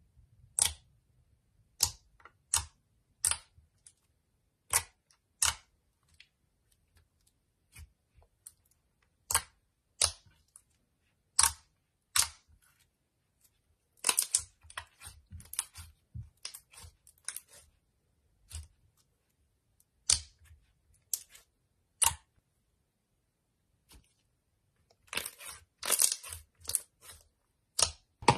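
Fingers poking and pressing a glossy pink slime, giving sharp wet clicks and pops, about one a second, with denser runs of crackling about halfway through and again near the end.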